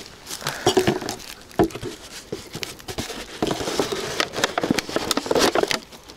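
Thin plastic bottle crackling and crinkling in irregular bursts as it is squeezed and handled, with a plastic bag rustling.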